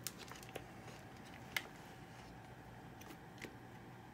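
A few faint, sharp clicks and taps of small objects being handled, the sharpest about a second and a half in, over a faint steady hum.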